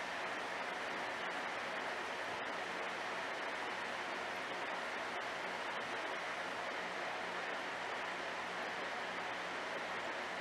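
Aquarium filtration running: a steady, even water hiss with a faint low hum underneath.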